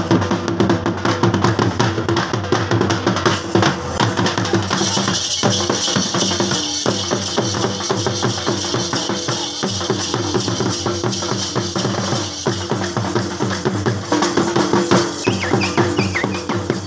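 Dhols, large double-headed barrel drums, beaten with sticks in a dense, steady jhumar rhythm.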